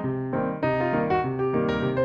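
Background music: an instrumental piece with piano, a quick run of notes and chords.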